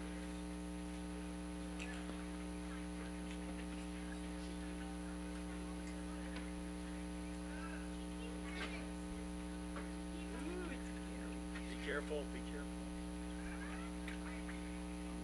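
Steady electrical mains hum on the sound system, with a few faint, short sounds over it, the most noticeable about twelve seconds in.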